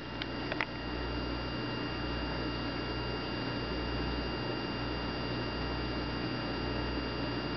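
Steady low electrical hum with a hiss and faint high steady whines, and a few light clicks in the first second.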